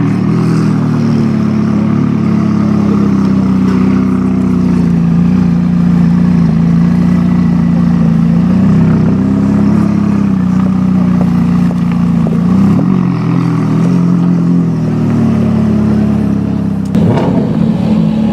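McLaren 570S's twin-turbo V8 running steadily at a near-constant pitch, with slight rises in pitch a little past the middle and a sharp crack near the end.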